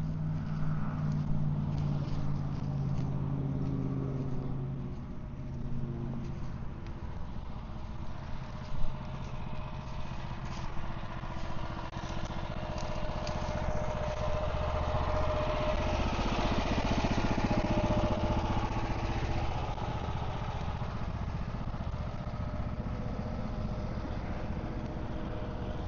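A motor engine running steadily, fading after a few seconds, then a vehicle sound swelling louder about two-thirds of the way through and easing off. There is a single sharp knock about a third of the way in.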